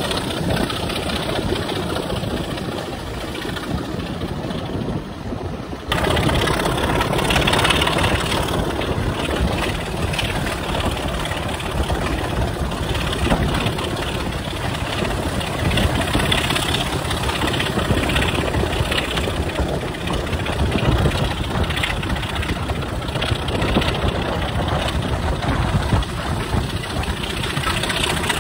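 A British Rail Class 25 diesel locomotive's Sulzer six-cylinder engine running ahead of the train, heard from an open carriage window together with rushing wind and wheels on the rails. The whole sound steps up louder about six seconds in and stays there.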